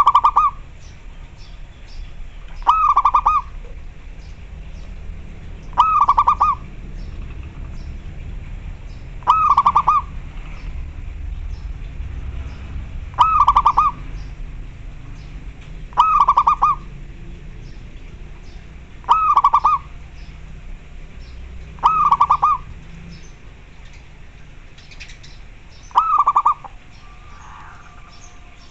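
A local zebra dove (perkutut) calling: nine short phrases of rapid staccato cooing notes, each about half a second long, repeated roughly every three seconds.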